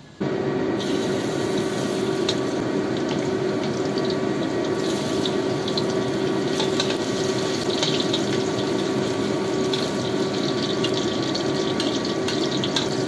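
Hot oil sizzling in a wok as sliced garlic, ginger and shallots fry, with a metal spatula scraping and tapping the pan, over a steady hum. The sound starts abruptly just after the opening and stays loud and even.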